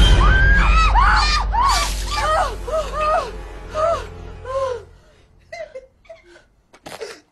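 Women shrieking in short, repeated panicked cries over a loud, deep rumbling music sting for about five seconds. Then the sound drops away to a few brief, faint noises.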